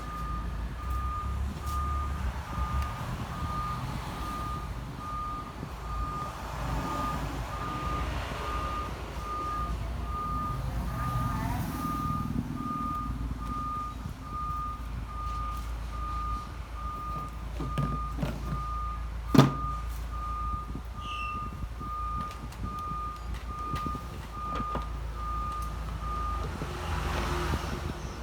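A reversing alarm beeping at an even rate, one steady high tone per beep, over a low vehicle rumble; the beeping stops near the end. A single sharp click about two thirds of the way through.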